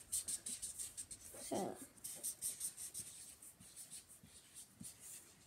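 Highlighter pen scribbling on paper in quick, repeated colouring strokes, busiest in the first half and thinning out toward the end. A brief voice sound from a child about a second and a half in.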